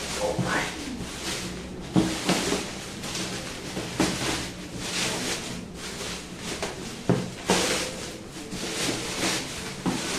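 Rustling and scraping of a parcel's plastic and cardboard packaging being handled and opened, in repeated bursts, with a few sharp knocks against the box.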